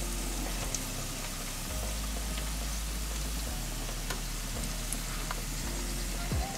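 Chicken legs roasting on a turning rotisserie spit, sizzling and crackling over a hot roasting tray, with a low steady hum underneath.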